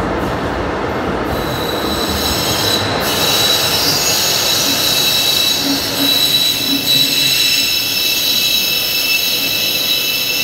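Istanbul metro train pulling out of an underground station: a rumble of wheels on rails, then from about a second and a half in a steady high-pitched squeal of the wheels, several pitches at once, that carries on as the train goes into the tunnel.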